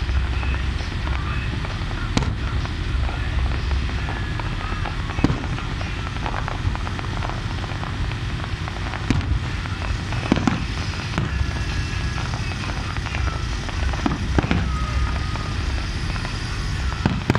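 Aerial fireworks shells bursting, a sharp bang every few seconds, each followed by a short echo, over a steady low rumble.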